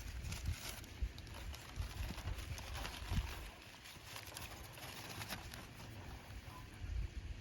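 Steady rushing hiss of a waterfall, with irregular clicks and knocks and low thumps over it.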